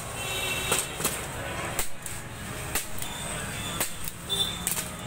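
A hand-held staple gun snapping shut against a picture frame, several sharp clicks at irregular intervals, some a second or so apart.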